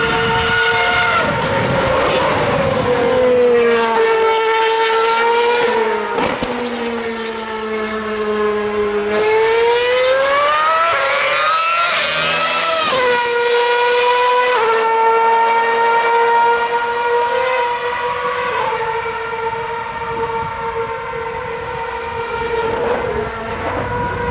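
Formula One cars' 2.4-litre V8 engines running on track, more than one heard at once. The engine notes fall and rise as the cars brake and accelerate; around the middle one climbs steeply in pitch, then drops suddenly at a gear change and holds steady.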